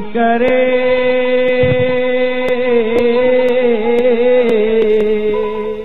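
A man singing a Sindhi song, holding one long note with a slight waver over a steady accompanying tone and a light tick about twice a second. The music cuts off near the end.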